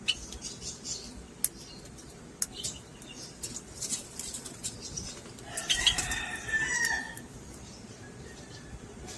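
Lovebirds fluttering their wings and moving about, with scattered sharp clicks. A louder cluster of short chirps comes between about five and a half and seven seconds in.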